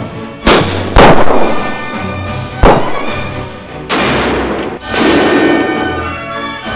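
Five gunshots, each with a long echoing decay, over a music track with held tones.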